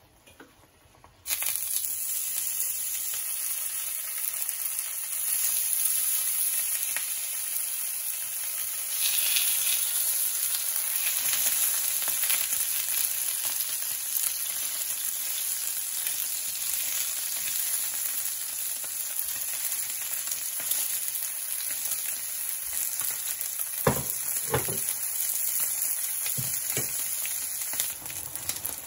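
Slices of spam sizzling in hot oil in a frying pan. The sizzle starts suddenly about a second in and goes on steadily, with a few knocks near the end.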